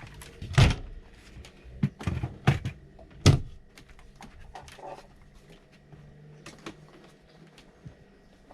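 Hard objects knocking and clattering in a small room: several sharp knocks in the first few seconds, the loudest under a second in and just past three seconds, then lighter clicks and taps.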